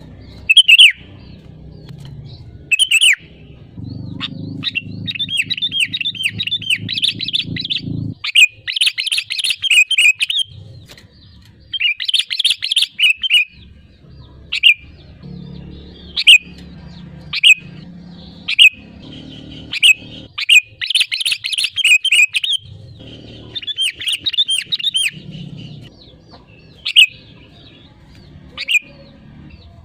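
Sooty-headed bulbul singing loudly: single sharp whistled notes alternating with fast, bubbling chattering phrases, repeated throughout.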